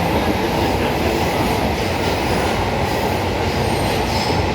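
Delhi Metro train running between stations, heard from inside the coach: a steady rumble of wheels on the rails.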